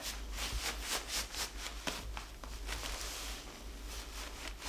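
Large ink-soaked calligraphy brush dragging and sweeping across paper: a quick run of short, hissy bristle scrapes.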